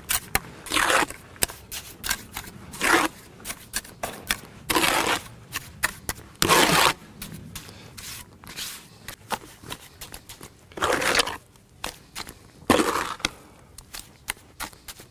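A steel trowel scraping lime mortar off a mortar board and packing it into the joints between stones: about six loud gritty scrapes, with many short clicks and taps of the trowel against stone between them.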